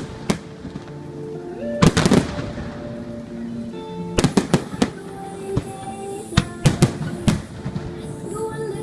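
Aerial fireworks bursting in sharp bangs: a few single reports, a tight cluster about two seconds in, then a rapid string of reports from about four to seven seconds. Music plays under them.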